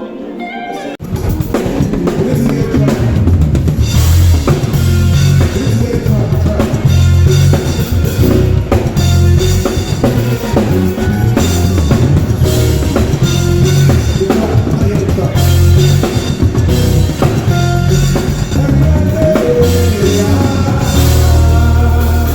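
Live band playing at a sound check: drum kit with kick and snare over heavy bass. It starts abruptly about a second in.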